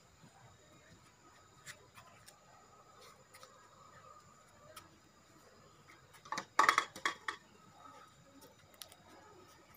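Faint scattered clicks, then about six seconds in a brief burst of hard objects clattering and knocking together, dish-like, several quick strokes over about a second.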